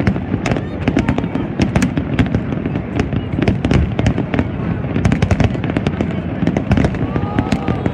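Fireworks display: a rapid, unbroken barrage of shell bursts and sharp crackles over a continuous low rumble, from many gold crackling shells going off at once.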